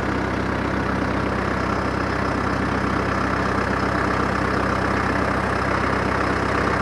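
An engine idling steadily: an even, unchanging drone.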